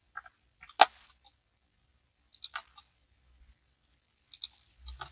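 Computer mouse and keyboard clicks: a single sharp click about a second in, then small clusters of quick clicks around the middle and near the end.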